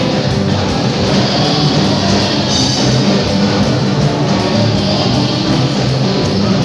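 Loud live praise music, amplified: a band with guitar and drums, with singers on microphones.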